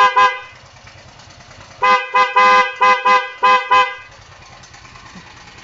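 Motorcycle's electric horn sounding in short beeps: one ending right at the start, then a quick run of about six short toots between two and four seconds in, each a steady buzzy tone. The horn is being tested after the bike's wiring was redone.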